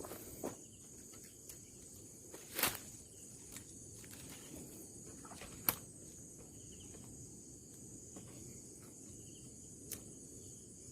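Steady high-pitched chorus of crickets and other insects, with a few sharp clicks and knocks scattered through it, the loudest nearly three and nearly six seconds in.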